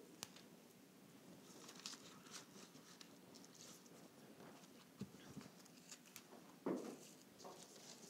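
Near silence with faint rustling and light clicks of flower stems and leaves being handled and tucked into a floral arrangement, and a soft thump about two-thirds of the way through.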